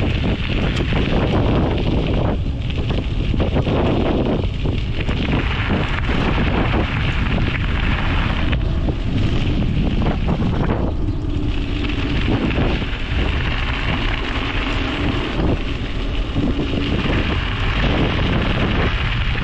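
Wind buffeting the microphone of a GoPro Hero 9 riding along on a moving bicycle: a heavy, steady low rumble, with rushing in the middle range that swells and eases.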